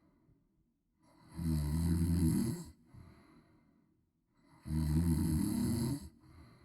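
A woman snoring loudly: two snores about three seconds apart, each lasting about a second and a half and trailing off into a softer breathy sound.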